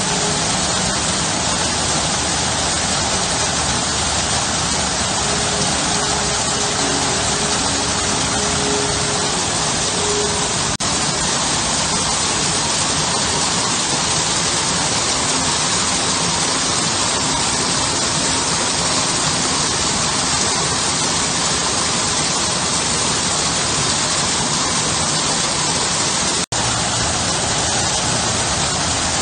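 Garden waterfall pouring over stone ledges into a pool: a steady, even rush of splashing water. It cuts out for an instant near the end.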